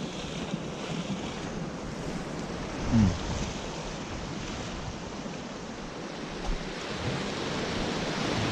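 Sea waves washing against a rocky shore, a steady rush of surf, with wind buffeting the microphone. A brief low falling sound stands out about three seconds in.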